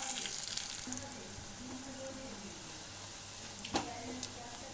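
Onions and freshly added spice powders sizzling in hot ghee and oil in a steel kadai. The hiss is loudest at the start and dies down within about a second. A steel slotted ladle scrapes and clinks against the pan as the spices are stirred, with one sharper clink near the end.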